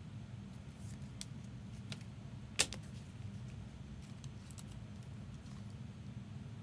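Trading cards and clear plastic card sleeves being handled, faint scattered clicks and rustles with one sharper click about two and a half seconds in, over a faint low hum.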